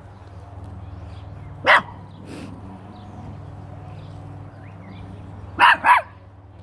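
Small-dog barking: one sharp bark a little under two seconds in, then two quick barks in a row near the end.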